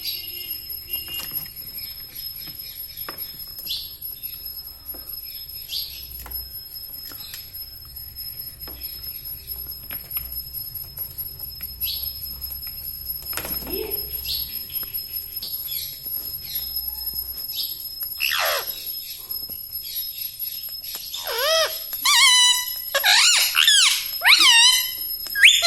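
Parrot giving faint short chirps and clicks, then, from about two-thirds of the way through, a run of loud squawking calls that swoop up and down in pitch, repeated several times near the end.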